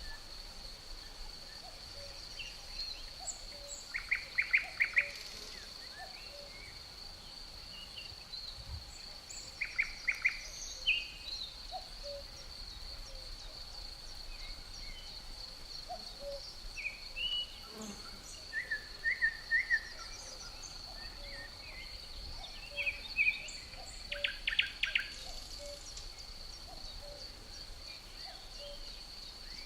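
Forest ambience: crickets keep up a steady high trill under scattered birdsong. Three louder bursts of rapid bird chirping stand out, and many fainter calls come in between.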